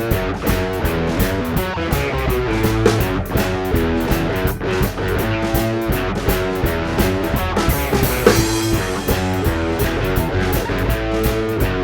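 Instrumental rock music: guitar playing over a steady drum-kit beat, with no singing.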